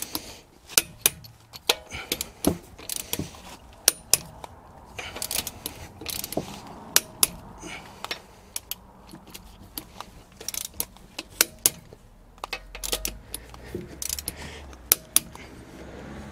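Torque wrench and socket tightening a car's wheel nuts: irregular sharp metallic clicks and clinks as the wrench is worked and moved from nut to nut.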